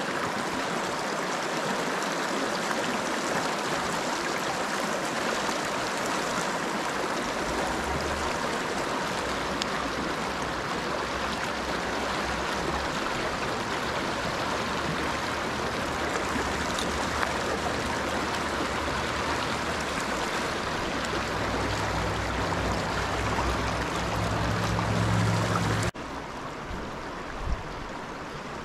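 The Big Thompson River rushing steadily over rocks close by. A low rumble joins in about a third of the way through, and near the end the rush cuts abruptly to a quieter, duller sound.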